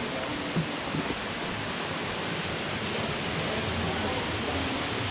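Steady rush of running water, with two faint knocks about half a second and a second in.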